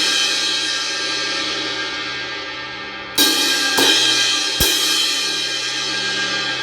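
Zildjian 18-inch K Dark Medium Thin crash cymbal, with a small flea-bite crack at its edge, ringing on and fading from a run of hits. About three seconds in it is struck again, four times in quick succession, and left to wash and fade.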